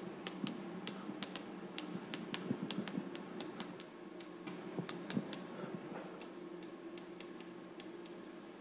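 Chalk writing on a blackboard: irregular sharp taps and clicks, several a second, that thin out about halfway through.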